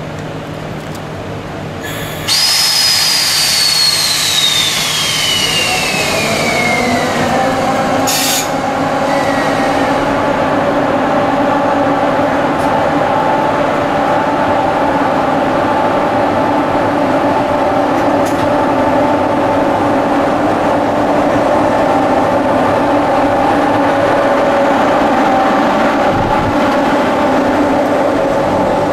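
EF64 electric locomotive and its train departing. About two seconds in a loud whine starts and falls steadily in pitch, a short hiss comes about eight seconds in, and from then on a steady hum of several tones runs as the train pulls out.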